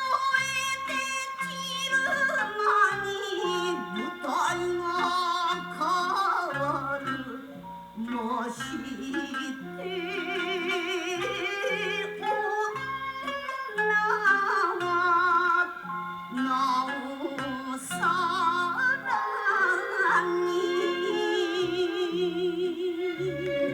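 Old Japanese enka record playing from vinyl: a woman singing with heavy, wavering vibrato over the band.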